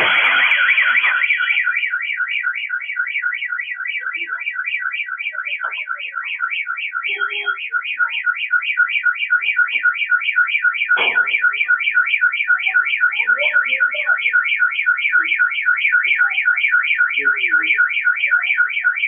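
Car alarm sounding a fast, evenly repeating warble, about four to five pulses a second, set off by the blast of an exploding gas cylinder. The noise of the explosion dies away under it in the first second or two, and a single knock comes about halfway through.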